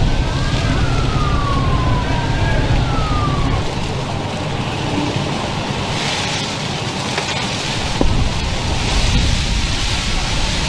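Emergency vehicle sirens wailing, two rising and falling tones overlapping, fading out about three and a half seconds in, over a steady low rumble. From about six seconds in, a rushing hiss.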